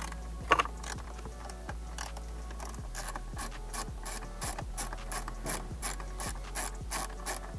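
Hand ratchet wrench clicking steadily, about four to five clicks a second, as a center-console bolt is backed out. A single sharp knock comes about half a second in.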